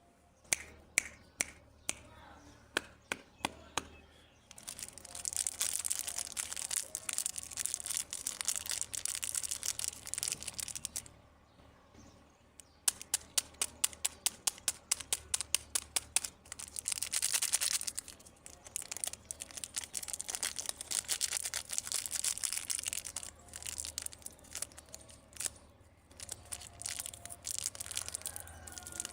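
Plastic candy and toy packaging being handled and opened: runs of sharp clicks and taps alternate with long stretches of crinkling and tearing wrapper.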